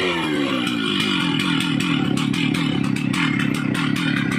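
Stihl MS 660 two-stroke chainsaw coming down from high revs and settling to a steady idle, with a rapid, even ticking over the idle.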